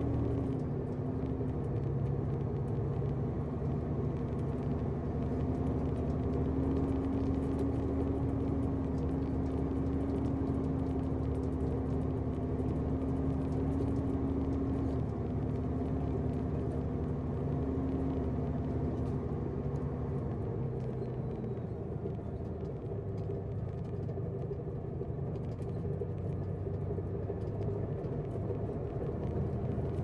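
A loaded truck's engine running and road noise heard from inside the cab while driving. The steady engine hum shifts in pitch about halfway through and again about two-thirds of the way in.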